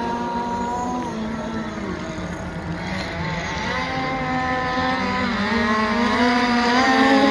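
Petrol radio-controlled boats running flat out across the water, their small two-stroke engines whining high, the pitch dipping and rising as they turn and throttle. The engines grow louder towards the end as a boat comes closer.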